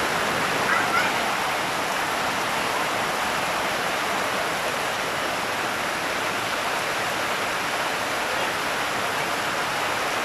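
Heavy rain falling on corrugated tin roofs and waterlogged ground, a steady, even hiss.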